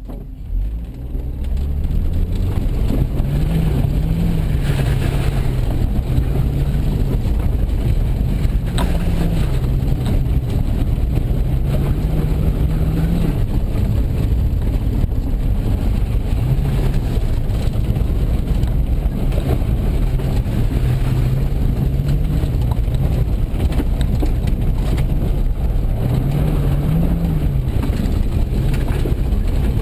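Car engine under hard driving, its revs climbing and dropping over and over through acceleration and gear changes, with constant road and gravel noise underneath. It picks up about a second in.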